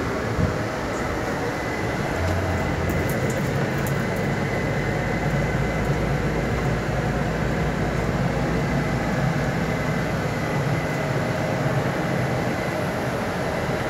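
Steady running noise of a coach bus heard from inside the passenger cabin: a low engine drone under an even rush of noise, with a faint steady high whine.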